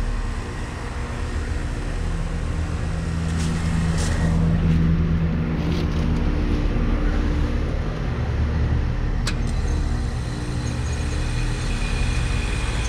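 Lennox Merit 13HPX heat pump outdoor unit running at the end of a defrost cycle, its compressor giving a steady hum with several low tones. A sharp click comes about nine seconds in.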